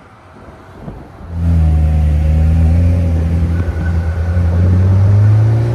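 A sports car's engine and exhaust starting up loudly about a second in. It holds a steady low drone, then the pitch climbs a little near the end as the car accelerates.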